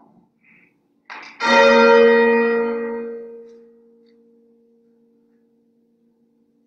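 A bell tolled once for the Angelus, struck about a second and a half in. It rings out and fades over a few seconds, leaving a low hum.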